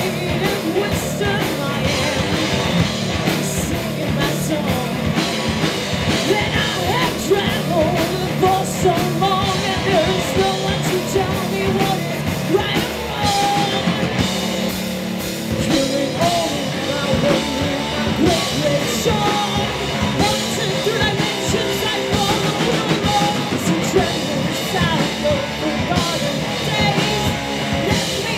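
Stoner rock band playing live, with distorted electric guitars, bass and a drum kit.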